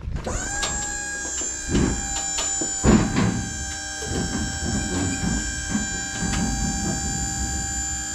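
Electric hydraulic pump of a tilt-deck trailer running to tilt the deck: a steady whine that starts suddenly, with a couple of clunks about two and three seconds in.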